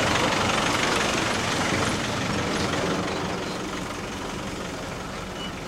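Engine and road noise of a London black cab driving, a steady rumbling noise that fades gradually.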